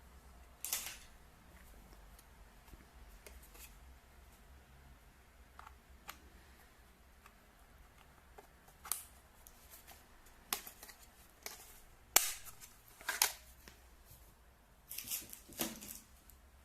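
Scattered clicks and short rustling scrapes of unboxing handling, with about eight separate sounds, the loudest a sharp click about twelve seconds in.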